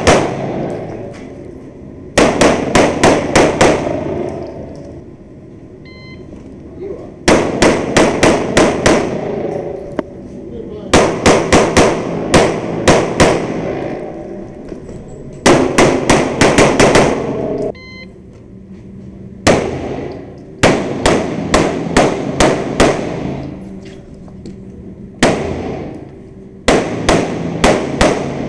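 Smith & Wesson Performance Center ported M&P 9 pistol firing 9mm rounds in about eight quick strings of several shots each, with pauses of a second or two between strings. The shots echo off the concrete walls of an indoor range bay.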